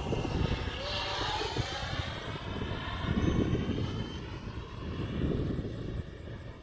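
A 64mm electric ducted fan on a 3D-printed RC F-35 jet whining in flight, its pitch shifting as it flies past, with wind rumble on the microphone.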